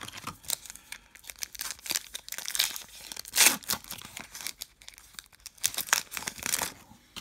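Foil wrapper of a Topps trading-card pack crinkling as it is handled and torn open, with the loudest rip about halfway through and more crinkling near the end.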